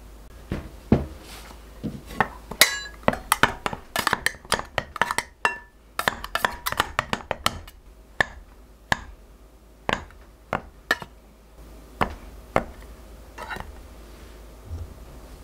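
Stainless steel pastry blender cutting cold butter into flour in a glass mixing bowl, its metal blades clinking against the glass. The strokes come quick and irregular for several seconds, then slow to single clinks about a second apart.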